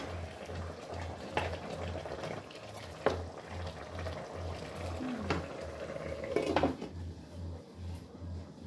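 Pork simmering in sauce in an electric cooking pot being stirred with a plastic spatula, with a few sharp knocks of the spatula against the pot. Near the end the glass lid is set back on the pot.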